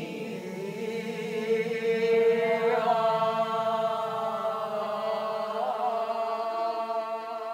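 Vocal chanting: voices hold long, steady notes over a lower sustained tone, and a higher voice joins about three seconds in.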